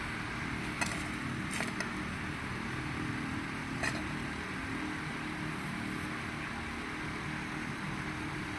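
A few faint clicks as the pleated element of a used Ford Transit MK5 oil filter is handled and lifted out of its cut-open metal canister, about a second, a second and a half and four seconds in, over steady background noise.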